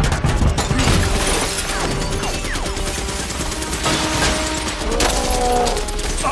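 Film action sound mix: a rapid run of gunfire-like cracks in the first second, then a dense din of crashing, shattering debris and sparking metal, with held musical tones from the score coming in near the end.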